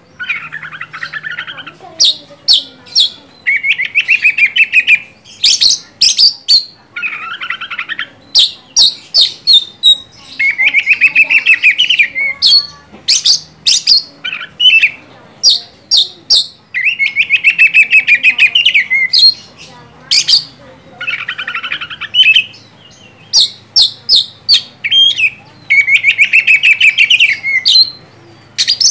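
Oriental magpie-robin singing loudly in full song: sharp, high whistled notes alternating with rapid chattering trills about a second long, repeated over and over.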